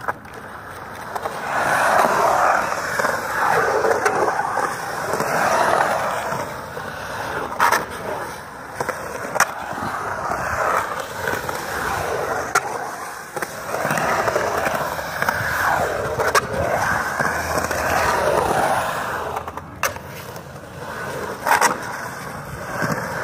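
Skateboard wheels rolling and carving through a concrete bowl, the rumble swelling and fading with each pass, with a few sharp clacks.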